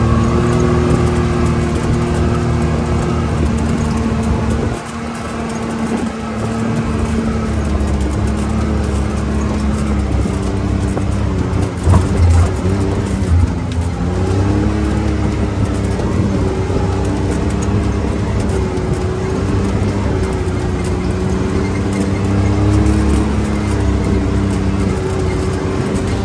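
Can-Am Maverick X3 side-by-side's turbocharged three-cylinder engine running at a steady cruise on a dirt track, heard from the cab over a rushing noise. The engine note dips briefly about five seconds in and rises and falls gently later. There is a single sharp thump about twelve seconds in.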